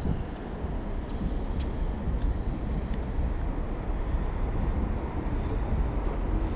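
Wind buffeting the microphone outdoors, a steady low rumble that flickers unevenly, with a few faint clicks.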